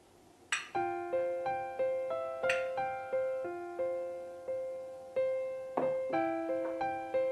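Gentle background piano music, a melody of evenly paced notes, about three a second, that starts about half a second in.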